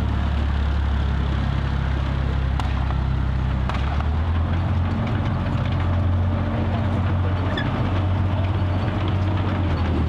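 Tiger II (King Tiger) tank's Maybach HL 230 V-12 petrol engine running as the tank drives slowly, a loud low drone whose pitch shifts a little about four seconds in and again near eight seconds. A couple of short sharp clicks come in the first half.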